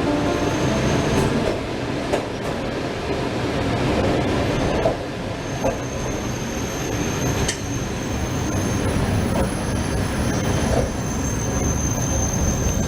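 Train running on the rails with a steady rumble, thin high wheel squeal over it and a few sharp clicks.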